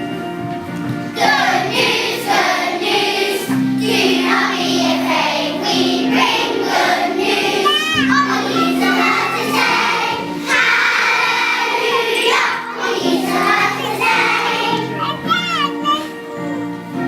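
Music with a group of children's voices singing over held instrumental notes.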